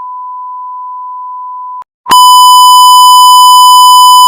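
Two 1 kHz censor bleeps. A clean, steady beep stops about two seconds in; after a brief gap a much louder, distorted, buzzy beep starts.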